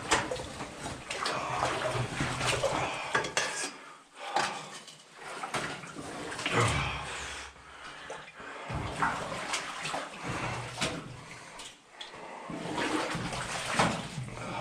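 Water sloshing and splashing as someone wades through deep water in waders, in irregular surges, with scattered sharp knocks and clinks.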